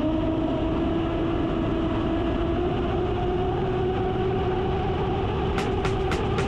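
Onboard the Rampage twin-hull RC catamaran: its 6S electric drive whining steadily and slowly rising in pitch, over a constant rush of water and wind. Four sharp ticks near the end.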